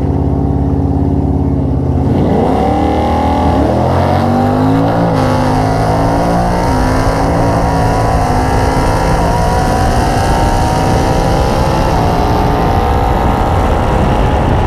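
Drag-racing V8 cars launching and accelerating hard down the strip: the engine note holds steady on the line, then rises and drops through quick shifts about two to five seconds in, then climbs slowly at high revs.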